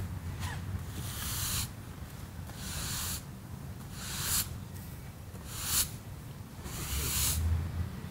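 Push broom sweeping sawdust off the freshly chainsaw-milled surface of an elm log: about five separate swishes of the bristles across the wood.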